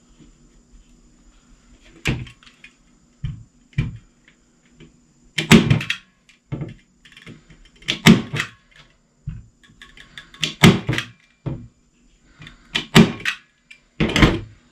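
Manual squeeze-action staple gun firing 3/8-inch staples through jute webbing into a wooden seat frame: a series of sharp snaps, about one every two to three seconds, with lighter knocks of handling between them.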